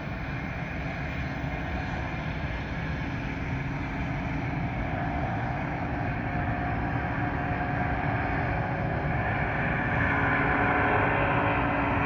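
Antonov An-124's four turbofan jet engines running at takeoff power, heard from far off as a steady roar with a faint whine, growing steadily louder.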